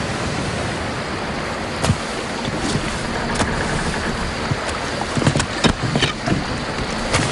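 Wind and sea surf: a steady, loud rushing noise, with sharp clicks and knocks that start about two seconds in and come more often in the second half.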